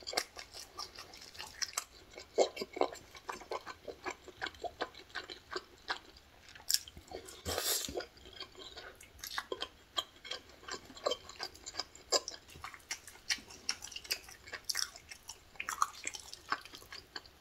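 A person chewing food close to the microphone, with many quick, irregular mouth clicks and one brief louder rush about halfway through.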